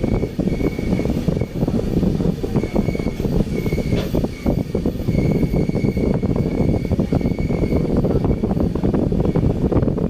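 Steady rumble and travel noise of a moving vehicle, with a short click about four seconds in.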